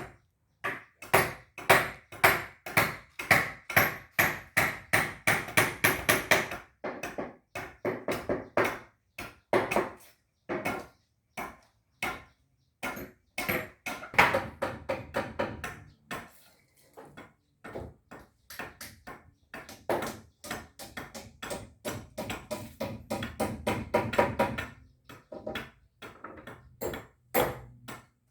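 Rapid hammering on timber, about three blows a second in runs with short pauses, each blow ringing briefly, as joints of the house frame are driven together.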